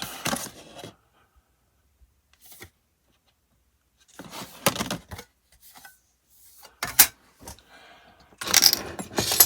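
Small metal tools and a photo-etched brass sheet handled on a hobby workbench: scattered rustles and light metallic clicks, with one sharp click about seven seconds in and a busier stretch of handling near the end.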